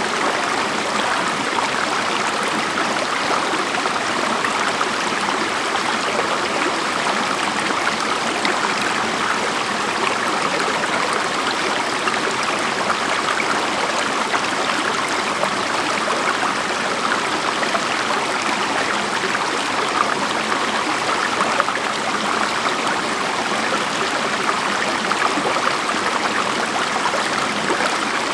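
Waterfall on a creek, water rushing steadily.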